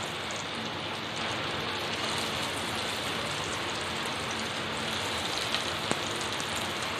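Breadcrumb-coated potato cheese balls deep-frying in hot oil in a kadai, sizzling steadily, with a couple of small clicks near the end.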